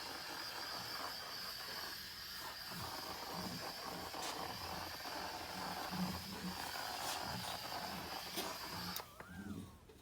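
Redline EZ50 electrostatic powder coating gun spraying, a steady hiss of compressed air carrying the powder, that cuts off suddenly about nine seconds in when the spraying stops. Faint knocks of parts being handled sound underneath.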